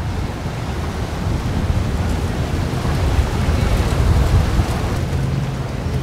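Single outboard motor on a Yellowfin center-console fishing boat running past on the river, a low steady engine rumble mixed with wind noise, swelling about four seconds in as the boat goes by.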